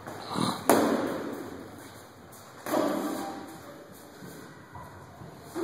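Boxing-glove punches landing in sparring: a few sharp smacks, the loudest about a second in and near three seconds in, each ringing on in a large echoing gym hall.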